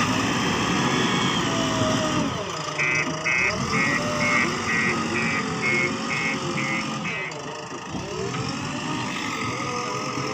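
Heavy diesel machinery running, its pitch rising and falling. An electronic beeper sounds rapidly, about two or three beeps a second, from about three seconds in to about seven seconds in.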